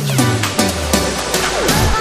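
Electronic dance music. The kick drum drops out for a short break with a falling low synth glide, and the beat comes back in at the end.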